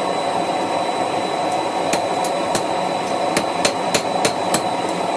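Hammer blows on hot steel at the anvil, about eight sharp strikes at roughly three a second from about two seconds in, over the steady noise of the forge running.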